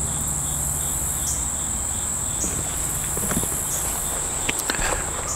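Steady high-pitched drone of insects, with a few footsteps and scuffs on the ground near the end.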